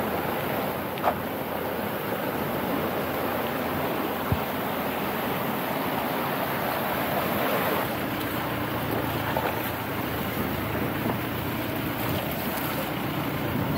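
A small mountain stream rushing and splashing over rocks, a steady rush of water, with a couple of faint knocks.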